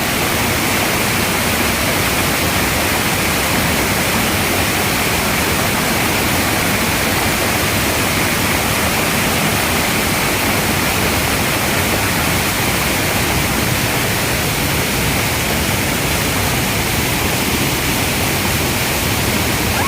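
Waterfall roaring: a loud, steady rush of falling water that does not change.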